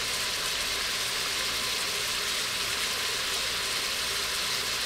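Diced chicken searing in melted butter in an Instant Pot's stainless inner pot on sauté: a steady, even sizzle as the cold meat sticks to the hot bottom before it lifts.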